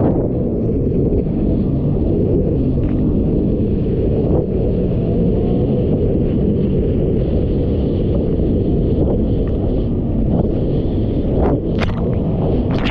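Personal watercraft running through choppy sea, heard as a loud, steady low rumble of engine, hull on the water and wind buffeting the microphone. A few sharp hits come near the end.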